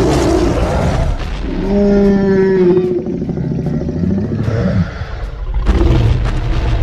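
Cartoon monster roaring and growling sound effects, with one drawn-out roar about two seconds in that sags slightly in pitch.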